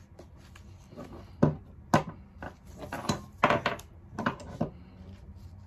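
Irregular sharp metal clicks and clacks from a jammed ratchet strap's buckle being worked by hand while the tangled webbing is pulled back off the spool, about seven or eight in a few seconds.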